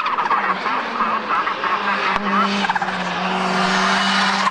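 Rally car running hard up a hill climb, its engine revs rising and falling as it brakes and slides through a hairpin bend, with some tyre squeal.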